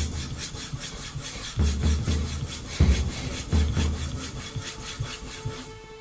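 Steel knife blade rubbed in quick back-and-forth strokes on a 6000-grit ceramic whetstone, a scraping hiss several strokes a second. It stops shortly before the end.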